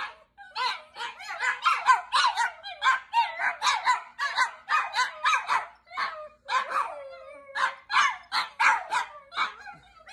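Two Chihuahuas barking and howling together in quick, high yips, several a second, with a longer wavering call about six seconds in.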